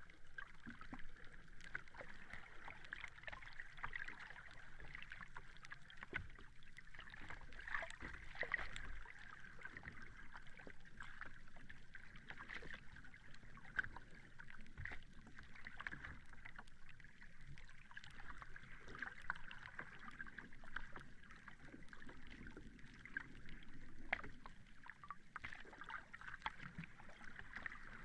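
Sea water lapping and sloshing, with many small irregular splashes over a steady hiss.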